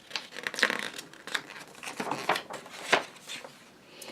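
Paper rustling and crinkling in a string of short irregular crackles, as a book's page is turned.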